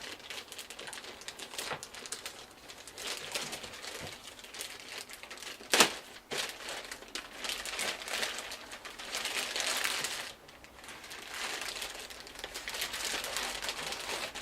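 Packaging crinkling and rustling as it is pulled off a newly unboxed oscilloscope, in uneven swells, with one sharp knock about six seconds in.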